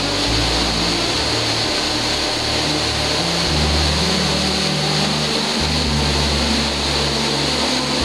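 Steady rushing roar of a fast river running through whitewater rapids. Music with low held notes that change every second or two plays beneath it.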